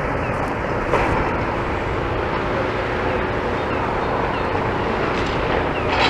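Demolition excavator running steadily, with two sharp knocks, about a second in and near the end.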